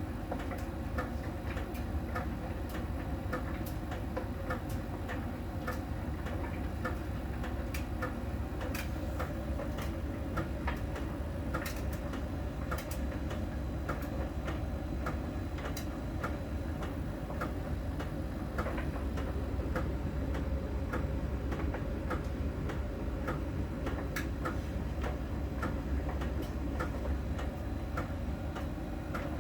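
Miele tumble dryer running with a steady low hum of the turning drum and a regular ticking, about two ticks a second. The ticks come from the small round sensor ball that rolls over the drum as it rotates and clicks each time it touches a contact point on the drum's outer surface.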